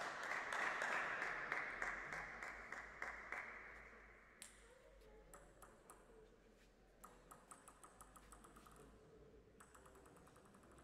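Applause fading out over the first few seconds, then a plastic table tennis ball bouncing in scattered sharp ticks, with a quick run of bounces near the end as the server readies to serve.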